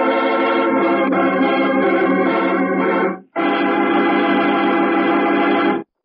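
Organ music cue: a held organ chord that stops about three seconds in, then after a brief break a second held chord that cuts off abruptly near the end.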